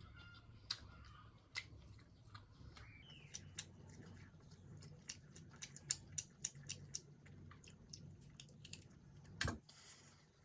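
Faint eating sounds: chewing of Maggi noodles and bread, with many scattered small sharp clicks and one louder knock near the end.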